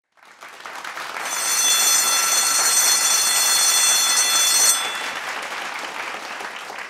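Intro title sound effect: a swelling rush of noise with a bright, high ringing shimmer over it from about a second in, the shimmer stopping near five seconds and the rush fading away near the end.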